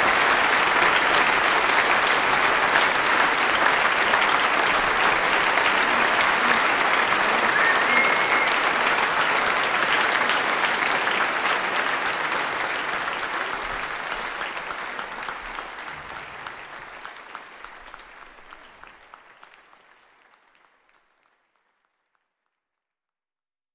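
Audience applauding, a dense crackle of many hands, with a brief whistle about eight seconds in. The applause fades out smoothly over the second half, ending in silence.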